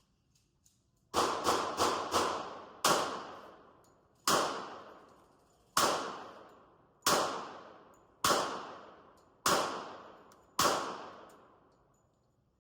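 Eleven gunshots: four in quick succession, then seven single shots about a second and a quarter apart, each ringing out in the reverberation of the indoor range.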